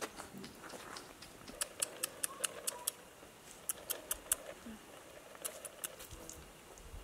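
Chickens pecking grain from hard dirt ground: runs of quick sharp taps, several a second, coming in three bursts.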